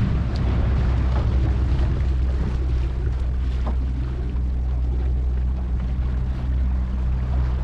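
Outboard motor on a jon boat running steadily under load while towing a shrimp trawl, a low, even engine drone.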